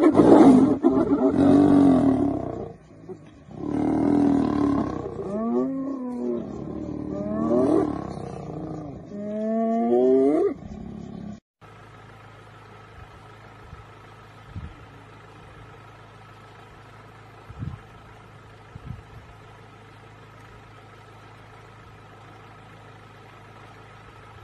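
A lion roars and snarls at spotted hyenas, which answer with cries that bend up and down in pitch. These sounds cut off abruptly a little past halfway, leaving a low steady hum with a few faint knocks.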